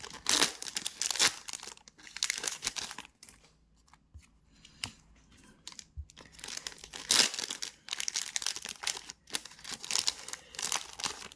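Trading card pack wrappers crinkling and being torn open by hand, in two stretches with a quieter pause in the middle.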